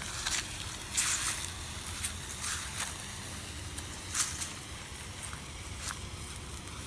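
A lit firework fizzing and crackling in short spurts, about four times, over a steady low wind rumble on the microphone.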